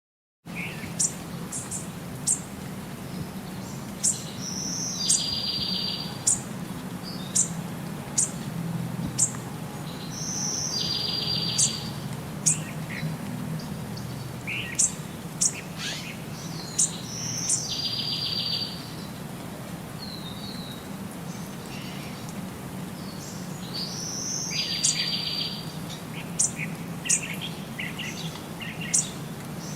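Birds chirping: many short, sharp high chirps, and about every six seconds a brief note followed by a buzzy trill, over a low steady hum.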